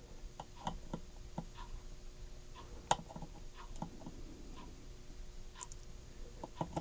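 Faint, irregular light ticks and taps of soldering work on a circuit board: the iron tip and capacitor leads touching the board's solder joints. One tap, about three seconds in, is a little louder.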